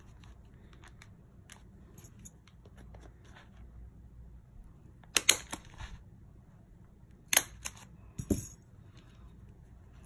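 Handheld single-hole paper punch snapping shut as it punches through brown paper-bag pages, giving a few sharp clicks in the second half, with light paper handling between.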